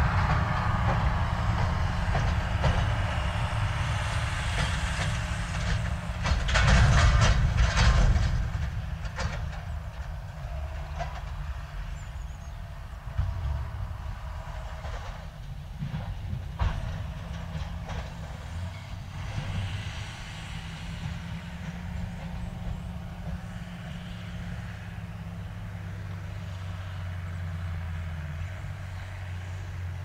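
Heavy farm machinery at a maize silage harvest, tractor and forage harvester engines, running as a low steady drone, with a louder clattering, rattling stretch about six seconds in and a steadier engine hum near the end as a tractor hauls a loaded silage trailer up a slope.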